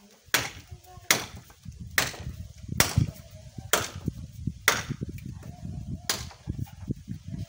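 Firewood being chopped and split by hand: seven sharp blade strikes into the wood, about one a second.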